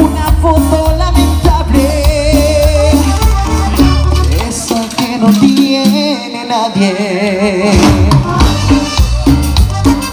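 Live cumbia band playing an instrumental stretch: steady bass and drums with scraped and shaken percussion under a wavering lead melody. About halfway through the bass drops out for roughly three seconds, then comes back in.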